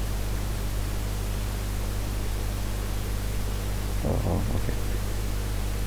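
Steady hiss of the recording's background noise with a low, even hum under it, and a brief voice-like murmur about four seconds in.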